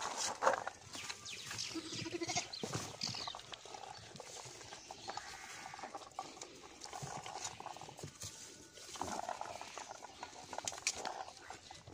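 Goats eating fruit pieces from a hand-held steel plate: munching, with frequent small clicks of mouths against the metal, and goats bleating now and then.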